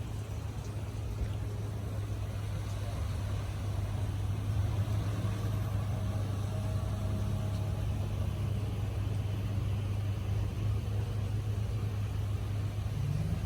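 An engine running steadily nearby, a continuous low hum.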